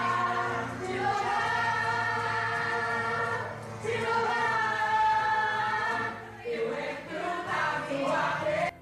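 Congregation singing together in worship; the singing cuts in suddenly and cuts off abruptly just before the end.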